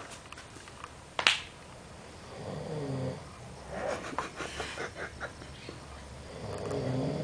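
Snoring during sleep: two drawn-out snores about four seconds apart, with a fluttering sound between them. A single sharp click comes about a second in.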